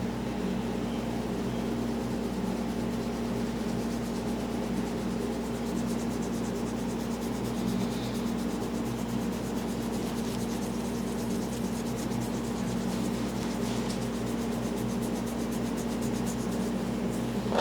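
Hands rubbing over skin and hair during a head and eye massage, a fine rapid scratchy brushing that grows clearer about six seconds in, over a steady electric hum like a fan or air conditioner.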